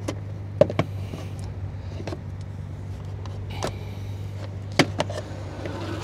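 Plastic interior trim panel in a Tesla Model Y footwell being pulled loose by hand: a handful of short, sharp plastic clicks and snaps as its clips give, the loudest about half a second in and near five seconds in, over a steady low hum.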